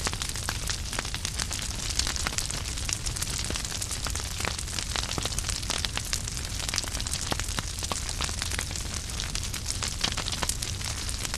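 Wood fire burning in a fireplace, logs crackling with many sharp pops and snaps over a steady rushing of flames.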